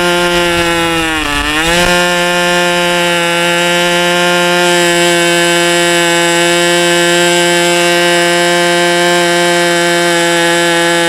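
Two-stroke model-aircraft glow engine fitted with a genuine OS #8 glow plug, running on a test stand with its propeller at high speed, about 10,500 rpm. About a second in the revs sag briefly and pick back up as the high-speed needle is set, then the engine holds a steady pitch.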